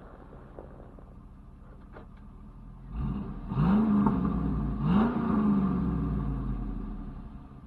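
2002 Cadillac Escalade's V8 idling, then revved twice in quick succession about three and a half and five seconds in. Each rev rises sharply, then falls back slowly to idle.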